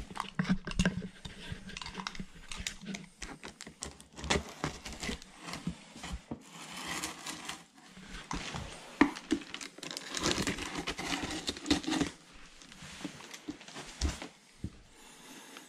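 Cardboard shipping box and plastic packaging being handled: irregular crinkling and rustling with scattered taps and scrapes.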